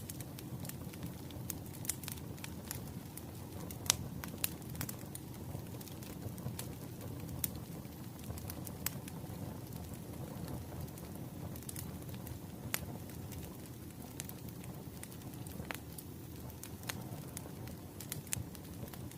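Burning firewood crackling, with a steady low rumble of the fire and irregular sharp pops and snaps a few times a second.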